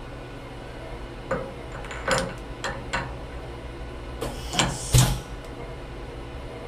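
A few light metal clicks as a tool holder is lined up against the spindle lugs of a Fadal CNC mill. About four seconds in comes a short blast of air, then a loud clunk as the air-actuated drawbar pulls the tool holder up into the spindle and clamps it, over a steady machine hum.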